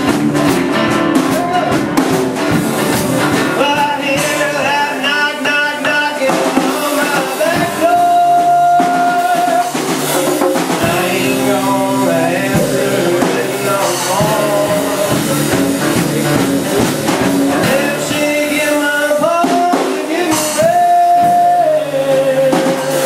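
Live folk-rock song: a man singing over acoustic guitar with a drum kit, holding long notes a couple of times.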